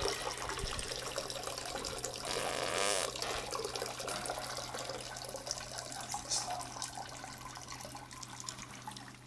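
A man urinating into a toilet bowl: a steady stream of liquid splashing into water, strongest two to three seconds in and tapering off toward the end.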